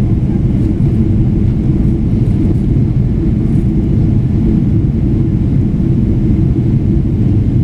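Steady low drone of a jet airliner in flight, engine and airflow noise heard inside the passenger cabin.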